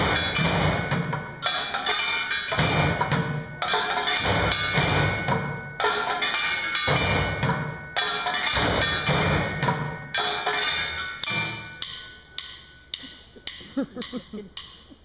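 Junkyard percussion: drumsticks beating a rhythm on upturned plastic buckets and metal trash cans, many players together. Near the end the playing thins to a few separate, quieter strikes.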